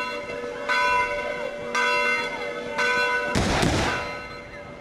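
A church bell tolling, struck about once a second, each stroke ringing on over the next. About three and a half seconds in, a black-powder arquebus shot goes off with a loud blast.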